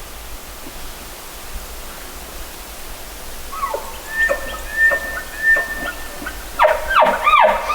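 Elk calling: a few short high whistled notes and held squeals from about three and a half seconds in, then four quick arching squeals in close succession near the end.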